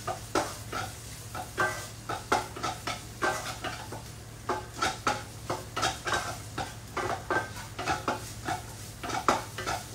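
Wooden spatula scraping a kadai as it stirs chopped garlic, green chillies and ginger frying in ghee, in irregular strokes about twice a second, over light sizzling.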